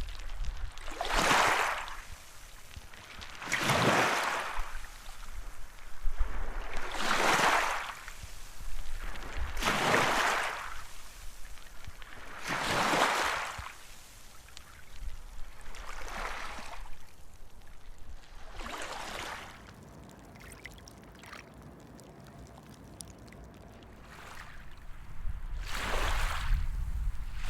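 Small waves washing in on a shore, about one every three seconds, each a rush of water that swells and falls away. Near the end there is a lull of a few seconds before the next wave comes in.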